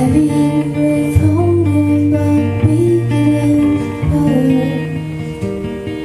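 A woman singing a slow melody over strummed guitar chords in a live folk song. Her voice drops out about five seconds in while the guitar carries on.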